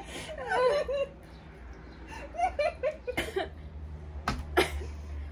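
Two women laughing in short bursts, with a few sharp knocks in the second half.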